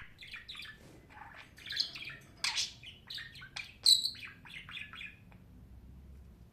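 Budgie chattering: a quick run of short chirps and warbled notes, with a loud harsh squawk midway and a sharp high call a little later, falling quiet a little past five seconds in.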